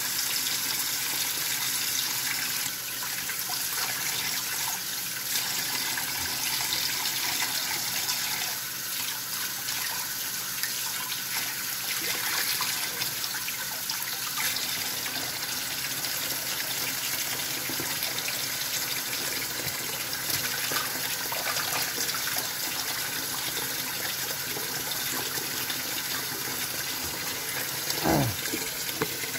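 Kitchen tap running steadily into a sink, the stream splashing over hands as a fish is rinsed under it. Near the end a brief squeak falls steeply in pitch.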